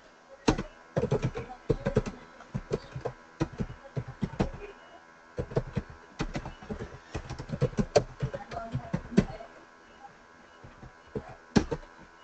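Typing on a computer keyboard: quick runs of key clicks with short pauses, then a lull and one single keystroke near the end.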